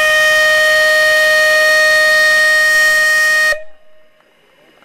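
Steam locomotive whistle blowing one long, loud, steady note, which cuts off sharply about three and a half seconds in.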